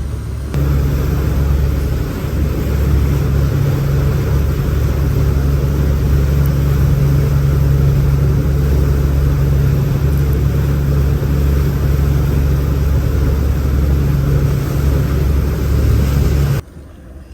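Boat engine running steadily, a loud, even low hum heard from aboard. It cuts off suddenly near the end.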